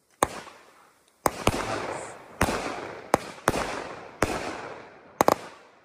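A 200 gram WINDA Fireworks cake firing shot after shot: about nine sharp bangs roughly a second apart, with a quick double bang near the end, each followed by a fading crackle from the bursting stars.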